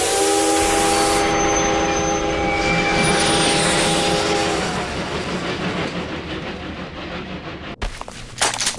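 Steam locomotive whistle blowing a chord for about four and a half seconds over the loud rushing hiss of the running train. The rush then fades, and a few sharp clicks come near the end.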